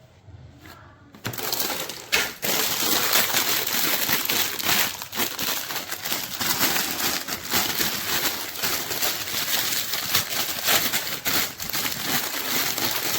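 Continuous dense crinkling and crackling, full of rapid small clicks, starting about a second in.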